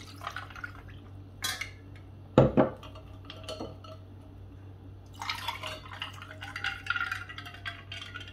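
Chilled drink poured from a steel saucepan into a glass over ice cubes. A glass is knocked and then set down with a thud about two and a half seconds in, and from about five seconds in a second glass is filled over ice.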